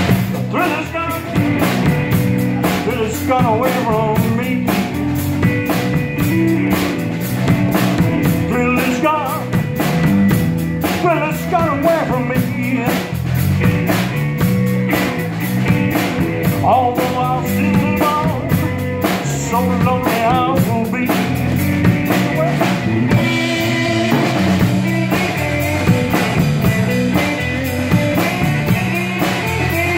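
Live blues-rock band playing a slow minor blues: electric lead guitar bending and shaking notes over electric bass and a drum kit.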